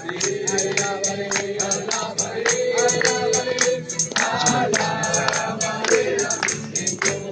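A group singing a worship hymn together, with a rhythmic jingling percussion beat.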